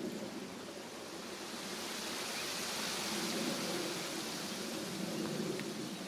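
Outdoor ambient noise: a steady rushing hiss that grows louder about two seconds in and stays up.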